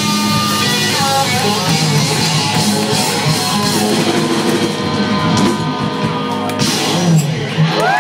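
Live rock band playing loudly, with electric guitar over a drum kit.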